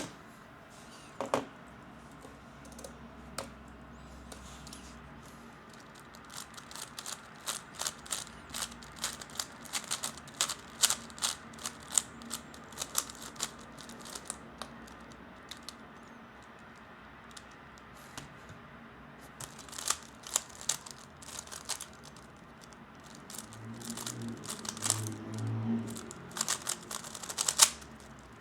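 A 3x3 Rubik's cube being turned quickly in a speedsolve: rapid plastic clicking of the layers, in two flurries with a quieter pause between them.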